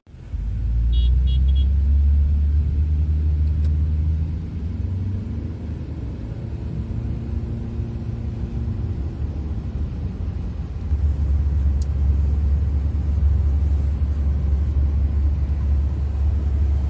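Low, steady rumble of road and engine noise inside a moving car, the pitch slowly rising and falling near the middle as the speed changes. A few short high beeps sound about a second in.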